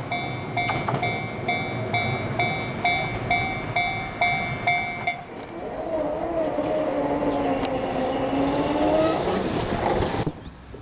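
Japanese level-crossing warning bell ringing about twice a second while a train runs past, stopping about five seconds in. The train's running noise carries on with a low drone that wavers in pitch, then the sound cuts off suddenly near the end.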